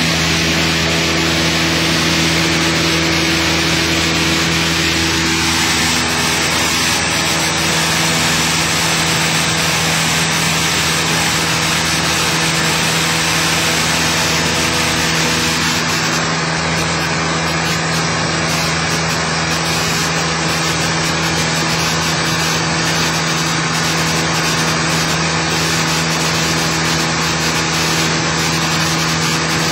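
Cessna 172's piston engine and propeller droning steadily in level flight, heard inside the cabin as a constant hum over a wash of wind and engine noise.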